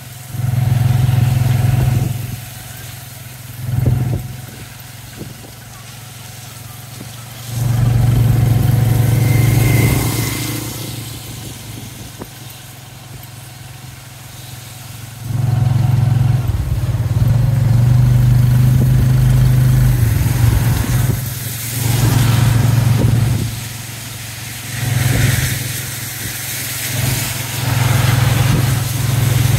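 Tuk-tuk's motorcycle engine heard from the passenger carriage, swelling loud for stretches of a few seconds and dropping back in between, over a steady hiss of tyres on wet road.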